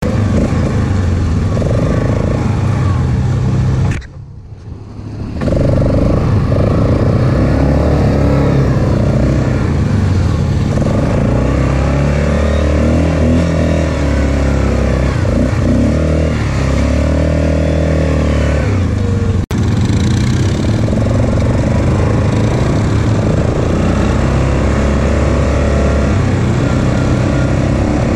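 ATV engines running and revving on a dirt trail, the pitch rising and falling as the throttle changes. The sound drops out briefly about four seconds in and breaks off for a moment near twenty seconds.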